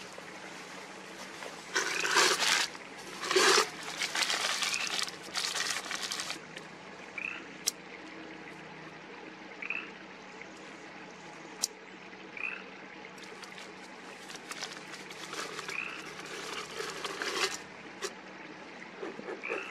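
Paper rustling and crumpling in noisy bursts, with a few sharp clicks, as paper is handled and stuffed into a bellows hive smoker to be lit. Short, high, rising bird chirps recur every few seconds.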